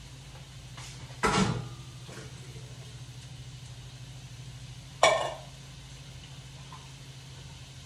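Two loud metallic clanks about four seconds apart, each ringing briefly, as opened food cans are knocked against the sink and colander while being emptied out. A steady low hum runs underneath.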